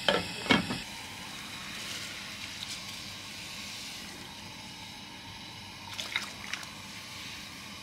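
A glass pot lid set on a pot with two quick clinks, then soaked rice and its water poured from a glass bowl into a pot of water: a soft, steady pouring and sloshing, with a couple of light knocks a little before the end.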